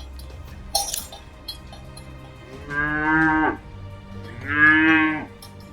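Cattle mooing: two calls of about a second each, the second a little louder, both dropping in pitch as they end. A short sharp noise comes about a second in.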